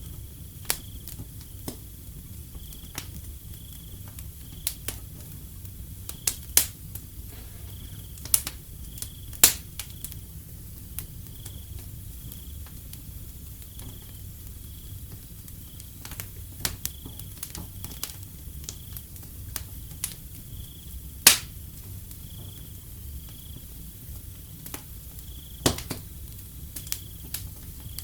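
Wood fire crackling with irregular sharp pops, the loudest about 21 seconds in, over a low steady rumble. A cricket chirps steadily throughout, a high, even pulse repeating a little faster than once a second.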